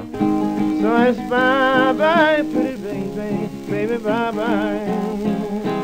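Background music: a song with strummed acoustic guitar and a singer's voice with vibrato.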